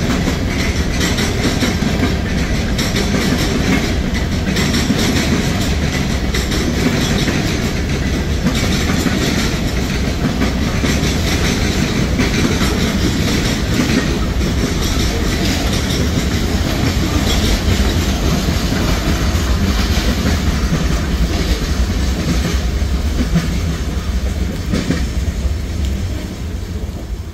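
Freight cars of a CSX mixed freight train rolling past, their wheels clacking over rail joints, with heavy rain falling steadily over it all. The sound eases off near the end as the last cars move away.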